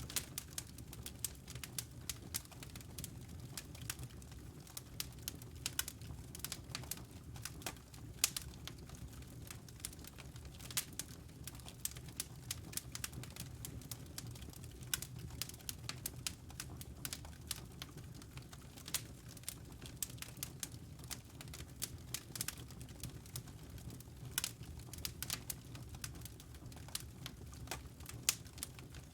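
Wood logs burning in a fireplace: irregular sharp crackles and pops, several a second, over a low steady rumble.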